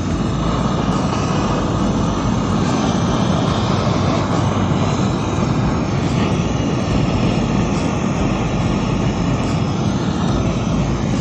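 Handheld gas torch flame burning with a steady roar as it heats a copper water pipe to drive off moisture before soldering. The sound comes up sharply at the start and holds level.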